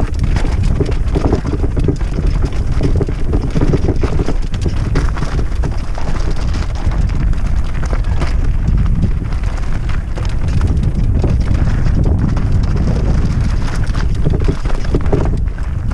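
Wind buffeting the microphone of a mountain biker's camera on a fast descent, a steady low rumble, with the tyres crunching over gravel and stones and the bike rattling throughout.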